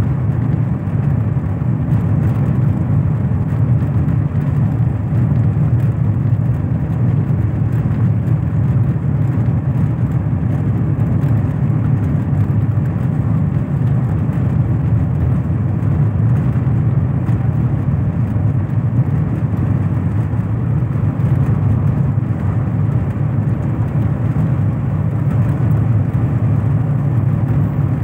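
A car driving steadily along a road: a continuous low engine and tyre drone that holds an even level throughout.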